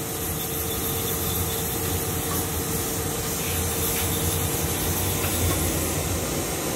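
Swistek RB20Y CNC Swiss-type lathe running under power: a steady hiss with a low hum and a faint steady tone, with no cutting or impacts.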